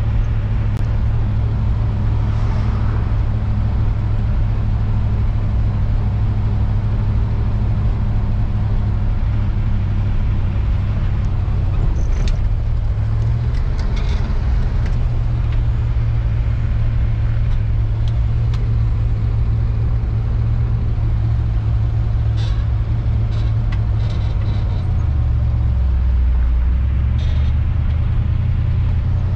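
Older pickup truck driving, heard from inside the cab: a steady low drone of engine and road noise that shifts in pitch about halfway through and again near the end, with a few light ticks and rattles.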